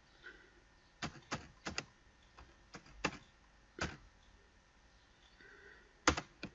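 Computer keyboard being typed on: slow, uneven keystrokes, about ten clicks in all, with a gap of a couple of seconds before the last two.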